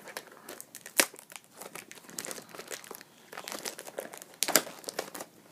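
Packaging on a trading-card box being torn open and crumpled by hand: irregular crinkling and crackling, with two louder snaps, one about a second in and one near the end.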